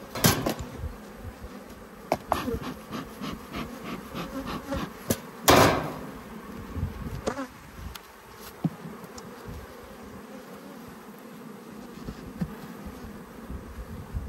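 Honeybees buzzing around an open hive, with scattered sharp knocks and clicks. The loudest knock comes about five and a half seconds in.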